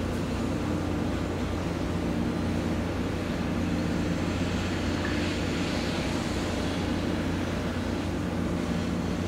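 Steady low drone of ship engines running, with a higher hum that fades in and out over it.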